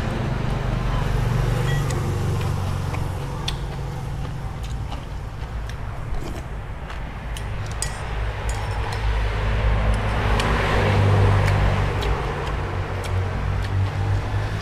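Low rumble of a motor vehicle's engine from the road, fading in the middle and swelling again, loudest around ten seconds in. A few light clinks of a spoon against a ceramic bowl.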